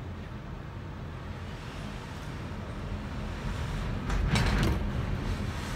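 Typhoon wind and rain: a steady rushing noise with a low rumble, growing louder about four seconds in.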